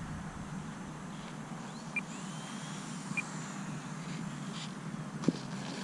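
Faint high whine of the E-flite Timber Turbo's electric motor and propeller, over a steady hiss of wind, with two short high chirps and a sharp tick near the end.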